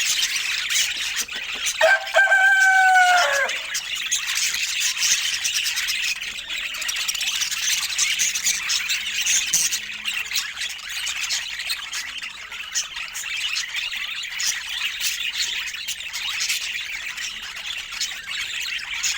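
Pet budgerigars chattering and warbling without pause, with one louder drawn-out call about two seconds in that drops in pitch as it ends.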